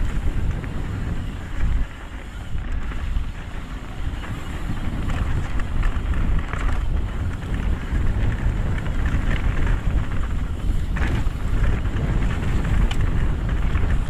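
Wind rushing over the camera microphone on a mountain bike descending a dirt trail. Under it are knobby tyres rolling on loose gravel and dirt, with a few short clatters from the bike.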